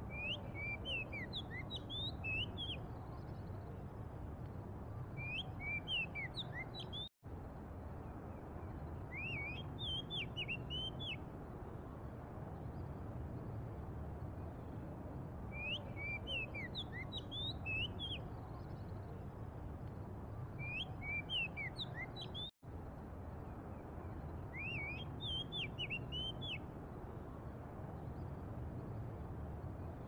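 Oriental magpie-robin singing: short phrases of varied, sliding whistled notes, one phrase every four or five seconds, over a steady low background rumble. The sound cuts out for an instant twice.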